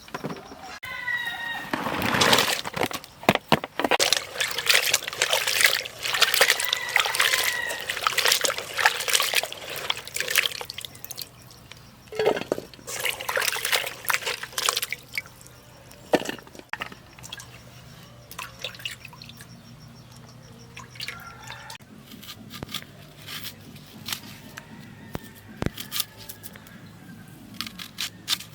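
Water splashing and sloshing in a vessel in dense, irregular bursts from about two seconds in until about fifteen seconds in, then only occasional splashes.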